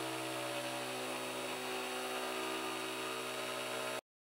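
The spindle motor of a CNC 3018 Pro router running steadily with an even hum as its engraving bit cuts a plastic plate. It cuts off abruptly to silence about four seconds in.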